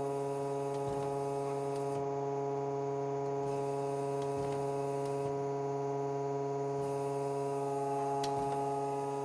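Hydraulic test bench's pump running under pressure at about 1200 PSI, giving a steady, even hum.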